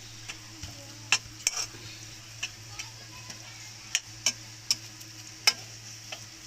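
A spoon stirring a thick carrot-and-milk mixture in a pan on the stove, with about ten irregular scrapes and clicks against the pan over a steady faint sizzle.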